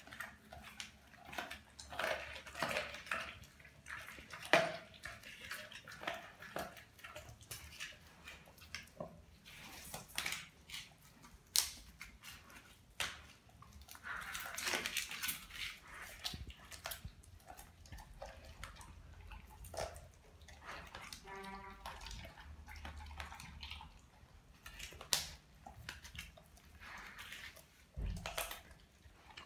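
Doberman chewing and licking a whole raw tilapia: irregular wet smacking and crunching, with sharp clicks and knocks as the fish is pushed about on the tile floor.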